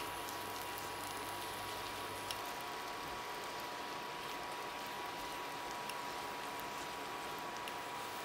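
Boiled potatoes frying in oil and butter in a nonstick pan: a steady, gentle sizzle with a few small ticks and pops. A steady thin tone sits underneath, and a low hum fades out about two and a half seconds in.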